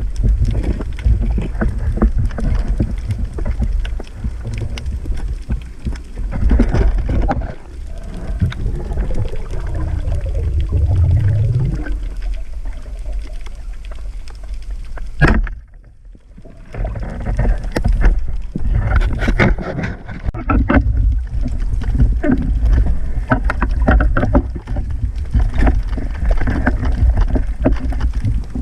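Churning water noise picked up by a camera in or at the water during spearfishing: a heavy low rumble with many scattered clicks and knocks. Around eight to twelve seconds in, gliding tones rise in pitch. A sharp click about halfway through is followed by a second or so of near quiet, then the churning returns.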